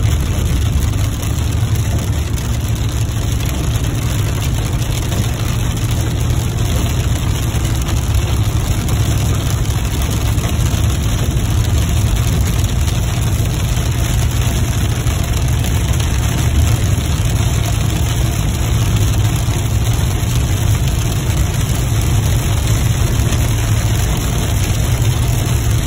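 Steady low rumble of a vehicle driving along a highway, heard from inside: engine and road noise with no sudden sounds.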